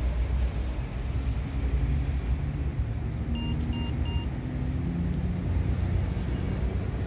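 Three short high beeps, about half a second apart, from a door-entry intercom keypad as its buttons are pressed, over a steady low rumble.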